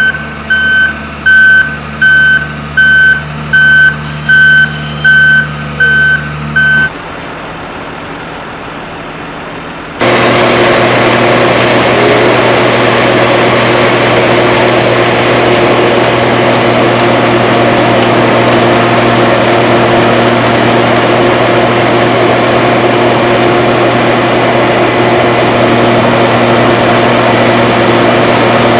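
A heavy road-works vehicle's reversing alarm beeps about every 0.7 s over its idling engine, then stops about seven seconds in. From about ten seconds in, a much louder heavy engine runs steadily close by.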